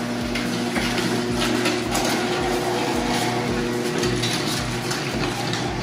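Electric garage door opener running, a steady motor hum as the door goes up.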